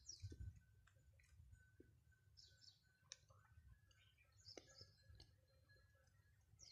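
Near silence with a few faint clicks of a cat chewing food, and faint short high chirps of birds in the background.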